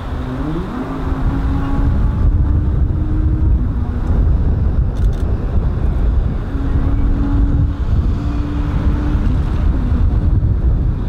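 Electric locomotive running toward the camera, its traction equipment giving off steady humming tones that rise in pitch about a second in and then come and go at a few set pitches. A heavy low rumble runs under them.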